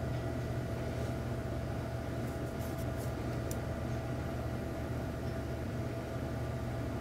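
Steady low electrical hum with a few fixed tones over a light hiss, the background noise of the recording room and equipment. A few faint, high ticks come between about two and three and a half seconds in.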